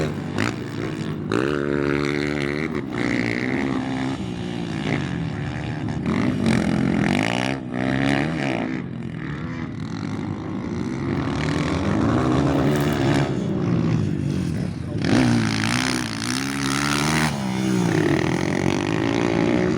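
Engine fitted with an aftermarket performance exhaust, revved again and again with a loud exhaust note, its pitch climbing and dropping every second or two.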